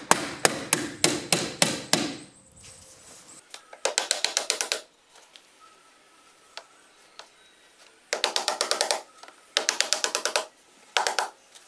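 Hammer driving nails through PVC garage door weather stripping into the door jamb. A run of about ten steady blows is followed by several short bursts of quick, rapid taps, and two last blows near the end.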